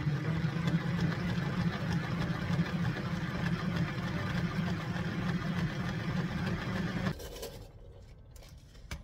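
Plastic salad spinner spinning shredded cabbage dry: a steady whirring rumble from the spinning basket that stops about seven seconds in.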